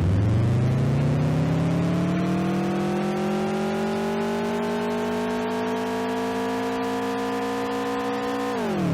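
Time-acceleration sound effect: a pitched hum with many overtones that climbs in pitch over the first few seconds, holds steady, then drops sharply near the end.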